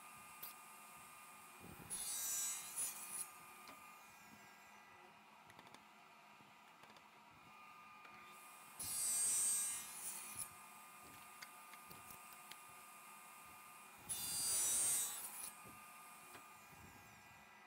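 Table saw with a thin-kerf blade making three separate cuts into the end of an English walnut board, each lasting about a second and a half. The saw runs steadily and quietly between the cuts.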